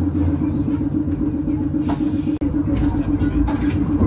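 A vintage Perley Thomas streetcar running along its track, heard from inside the car: a steady rumble of wheels and running gear under a constant low hum. The sound drops out for an instant a little past halfway.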